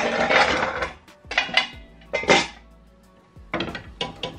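Frying pans and a stainless steel pan lid clattering and knocking on the grates of a gas hob as the pans are swapped between burners. A dense run of clanks and scraping fills the first second, a few separate knocks follow, and lighter clicks come near the end.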